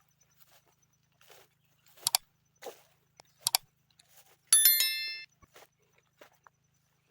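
Cutlass strokes clearing grass: a few short sharp chops, then about halfway through the blade strikes something hard and gives one loud metallic ring that fades out within a second.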